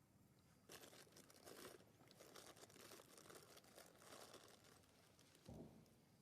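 Faint crackling rustle starting about a second in and lasting a few seconds, followed by two low thuds near the end.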